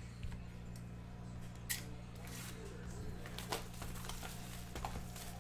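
Plastic shrink-wrap crinkling and crackling in short scattered rustles as it is peeled off a cardboard box of trading cards, over a steady low hum.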